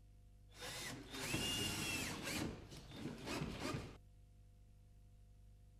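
Cordless drill-driver driving the connecting screws that join two kitchen base cabinets. One main run of about a second with a steady motor whine is followed by a few short spurts, and it stops about four seconds in.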